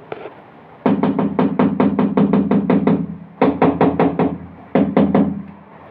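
Hammer tapping a ceramic wall tile to bed it into its mortar: a quick run of about a dozen taps, then two shorter runs of four and three.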